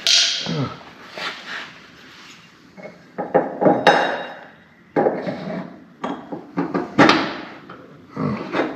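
Hammer striking a steel door hinge pin on a 1968 Chevelle, driving it into the hinge with about a dozen irregular blows, some leaving a short metallic ring.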